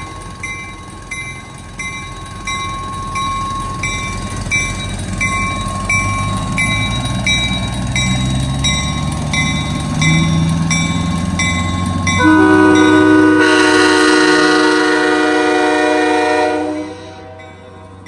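Nathan Airchime K5H five-chime locomotive horn, every bell sand cast, sounding one loud chord of several steady notes for about four and a half seconds, starting about twelve seconds in and cutting off sharply. Before it, a vehicle engine's hum rises in pitch as the pickup carrying the horn pulls away. A steady beep repeats about twice a second throughout.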